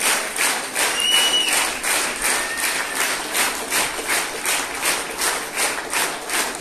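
A theatre audience applauding in unison, clapping together to a steady beat a little over twice a second.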